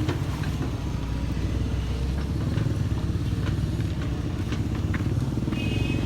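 Heavy diesel engine of construction machinery running steadily with a deep rumble, with scattered clanks and a brief high tone near the end.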